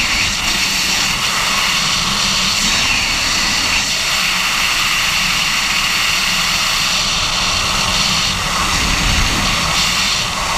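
Steady, loud wind rush over a skydiver's helmet-mounted camera in freefall.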